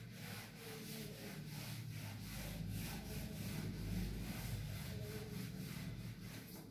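Handheld whiteboard eraser rubbing over a whiteboard in repeated back-and-forth wiping strokes as the board is cleaned.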